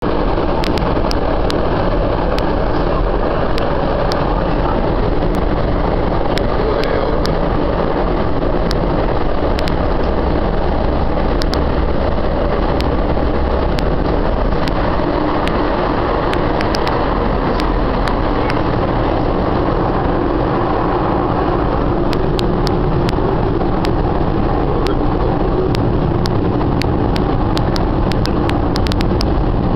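Chicago Green Line train running, a steady, unbroken rumble heard from inside the car.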